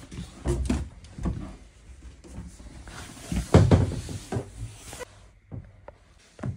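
Knocks and bumps of a camper's interior cabinet and bathroom doors being handled, opened and shut, with rustling in between. The loudest thud comes about three and a half seconds in.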